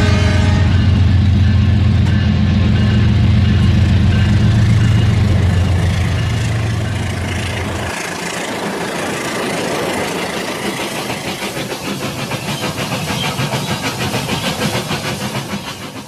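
Toy trains running on plastic track: a loud steady low hum for about the first half that stops abruptly, then a fast, even clicking of wheels over the track joints as another train passes close.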